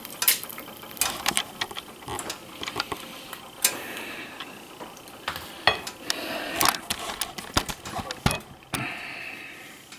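Kitchen utensils clinking and knocking irregularly against a frying pan and plate, with light sizzling from the hot pan between the knocks.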